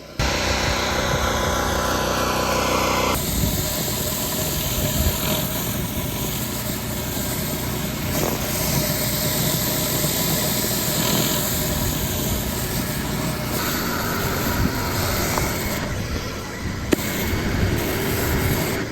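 Gas pressure washer engine running steadily while its high-pressure spray hisses against concrete. The sound shifts abruptly about three seconds in and again near the end.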